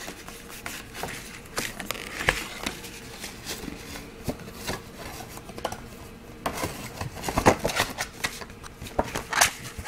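Handling noise from the iPad's packaging and accessories as they are put back into the box: scattered clicks and rustles of cardboard and plastic, with a few sharper knocks about two seconds in, around seven seconds in, and near the end.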